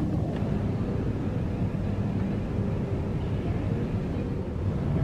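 Steady low rumble of airport apron noise, with a faint hum from aircraft and ground equipment running.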